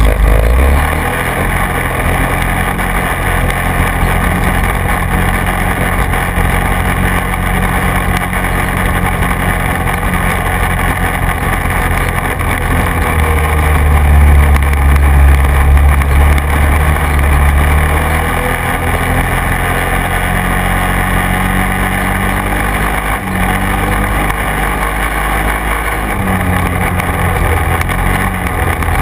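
Quad bike engine running under way, its note shifting up and down with the throttle several times. It is loudest for a few seconds around the middle.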